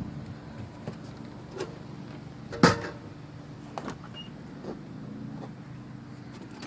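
Scattered clicks and knocks over a steady low hum, with one sharp knock about two and a half seconds in and a loud thump at the very end.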